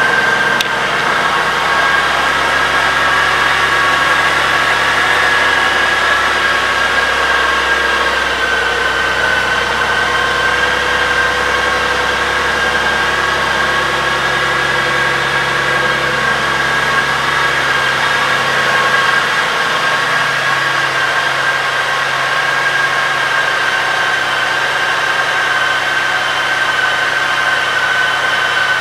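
Honda Gold Wing GL1800's 1.8-litre flat-six engine idling steadily just after being started, with a steady high whine above the engine note.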